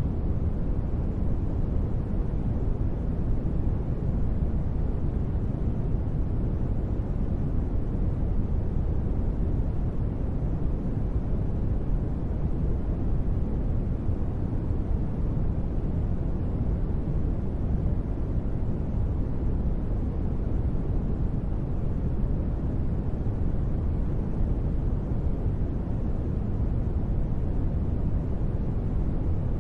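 Steady, unbroken deep rumbling noise with little hiss on top: a synthetic space-ambience noise track.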